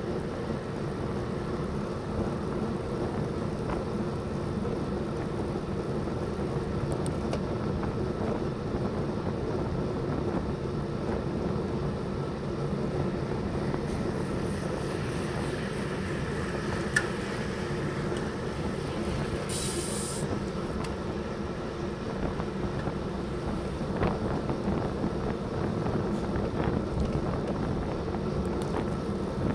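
Steady wind and road rumble picked up by a handlebar-mounted bicycle camera while riding along a smooth road, with a short high hiss about twenty seconds in.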